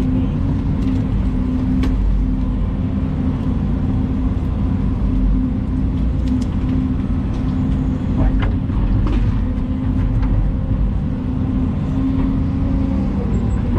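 Volvo EC220 excavator's diesel engine running steadily under work, with a constant hum. A few sharp knocks sound about 2, 8 and 9 seconds in.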